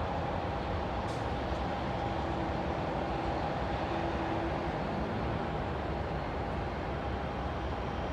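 Steady roar of airport and road traffic: jets on the ramp and passing vehicles, with a faint steady whine.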